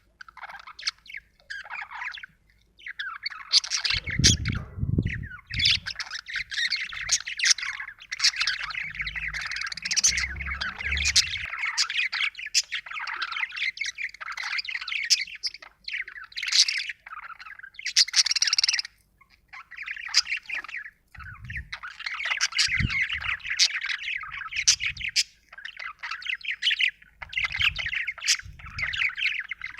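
Budgerigar chattering almost without a break, a fast warbling babble full of sharp chirps and squawks, with a few short pauses.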